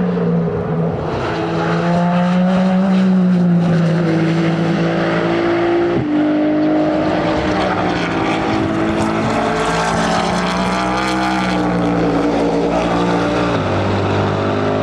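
Several race car engines running hard at once, their notes climbing as they accelerate, with gear changes that drop the pitch sharply about six seconds in and again near the end.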